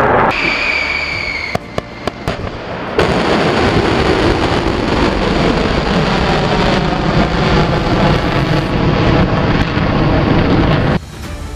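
Missile launch: the rocket motor's loud, dense roar as the missile lifts off through its dust cloud, beginning about three seconds in after a short falling whistle-like tone and a few sharp cracks, and cutting off suddenly near the end.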